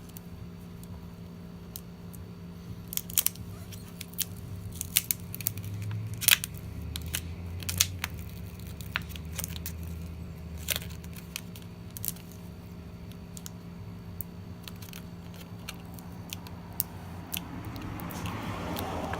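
Scattered light clicks and taps, as of small parts and tools being handled while working inside a computer, over a steady low electrical hum.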